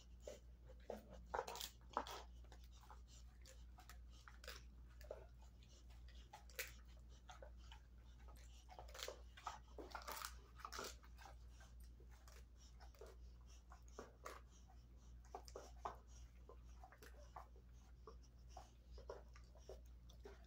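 Dog gnawing on a dried beef chew: irregular crunches and wet clicks, densest about two seconds in and again around ten seconds in.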